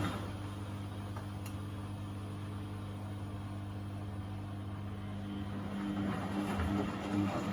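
Beko WMB71642W washing machine running in its first rinse: a steady low mechanical hum with water noise over it, swelling again near the end.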